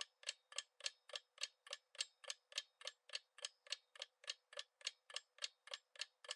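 Countdown-timer clock-tick sound effect, faint, ticking evenly about three and a half times a second.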